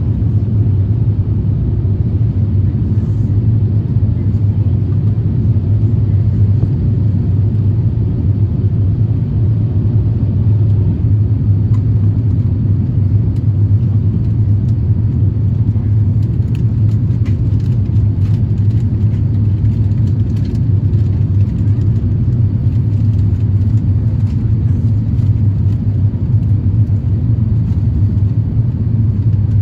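Steady low rumble of cabin noise inside an Airbus A350-1000 airliner, the drone of the engines and the air rushing past the fuselage, with a few faint ticks about two-thirds of the way in.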